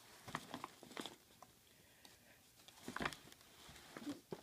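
Paper gift bag crinkling and rustling in short bursts as a cat thrashes around inside it.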